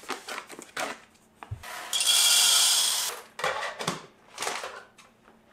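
Whole coffee beans poured from a paper bag into the hopper of a Baratza Vario burr grinder: about two seconds in, a rush of beans lasting about a second, with bag rustles and small clicks before and after it.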